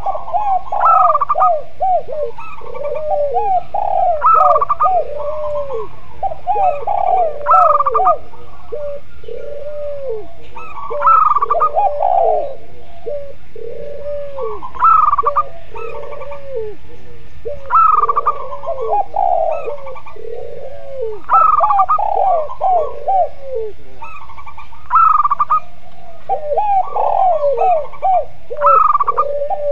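Spotted doves, zebra doves and Barbary doves cooing together in overlapping calls. A steady run of lower, arched coos carries on throughout, with a brighter, higher phrase recurring about every three and a half seconds.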